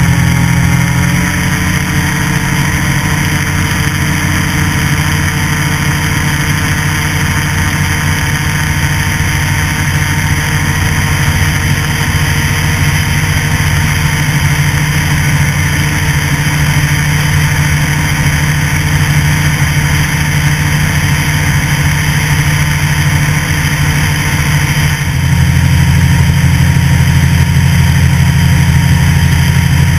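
Light aircraft engine and propeller running steadily under power during the takeoff roll and climb-out. The engine gets a little louder about 25 seconds in.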